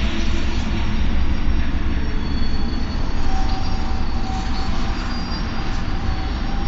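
Fairground ghost-train car running along its rails: a steady low rumble with faint, thin wheel squeals that come and go.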